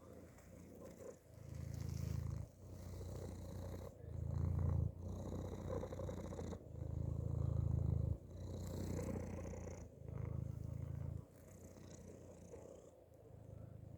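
Domestic cat purring inside a hoodie, a low rumble in repeated cycles of about a second to a second and a half, fading weaker over the last few seconds.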